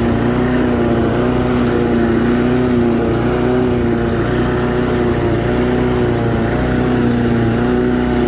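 Briggs & Stratton pressure-washer engine on a homemade push mower, running steadily while cutting grass, with a slight waver in its pitch.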